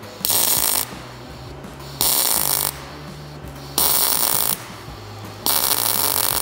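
MIG welder arc on thin steel exhaust pipe, running in four short bursts of about half a second to under a second each, roughly a second apart. This is stop-and-go spot welding, letting the thin metal cool between bursts so it doesn't burn through.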